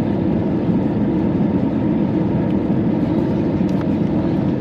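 Steady rushing noise of the jet engines and airflow heard inside the cabin of an Airbus A319 on its landing approach, heaviest in the low range and unchanging throughout.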